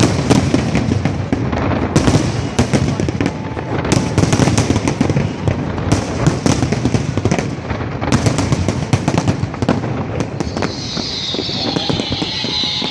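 Fireworks display: a rapid, irregular run of bangs and crackling pops from shells bursting overhead, thinning out near the end.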